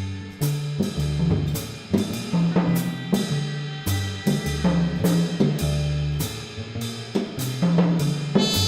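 Jazz drum kit playing, with snare, cymbal and hi-hat strikes, over a double bass playing a line of low notes; a horn comes in near the end.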